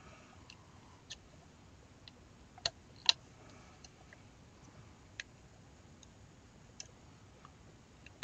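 Scattered light clicks and taps of small internal parts and springs being fitted by hand into a Tippmann Cronus paintball marker's open receiver half, with two sharper clicks about two and a half and three seconds in.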